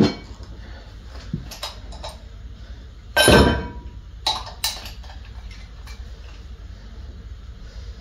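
Metal clanks and clicks of a plate-loaded cable machine's hardware as a straight bar is clipped to the cable's carabiner: a knock at the start, one loud clank with brief ringing about three seconds in, then two sharp clicks.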